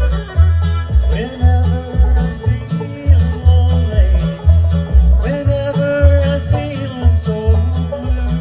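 Bluegrass band playing live: banjo, acoustic guitar and fiddle over an upright bass that sounds on the beat about twice a second.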